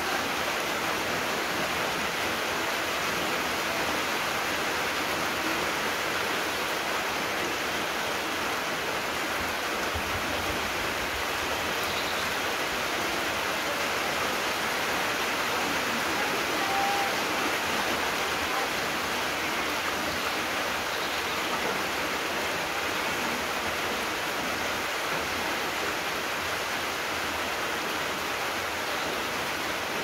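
Steady rain falling on trees and leaf-littered ground, an even hiss with no breaks.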